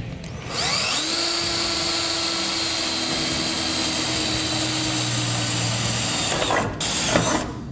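DeWalt power drill with a 9/64-inch bit spinning up about half a second in, with a rising whine, and running steadily as it drills through truck-bed sheet metal, then stopping near the end, followed by a few short clicks and knocks.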